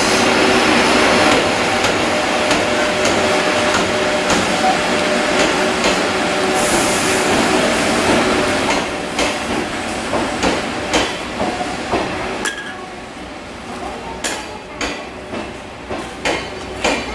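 Sleeper train arriving along a station platform, its red EF81 electric locomotive and blue sleeping cars rolling past with a loud rumble and a steady hum of wheels and running gear. About twelve seconds in, as the train slows, the rumble drops and gives way to a run of sharp clacks from the wheels crossing rail joints.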